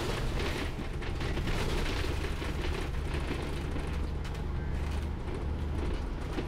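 Steady low rumble of a moving bus's engine and road noise, heard from inside the cabin.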